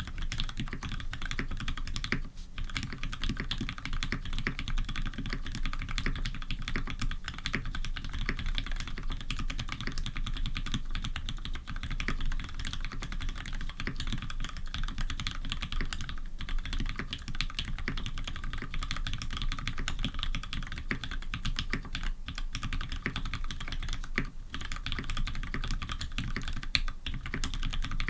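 Fast continuous typing on a custom tenkeyless mechanical keyboard with lubed Cherry Retooled Black linear switches, a brass plate and GMK keycaps, the keystrokes running together with only brief pauses.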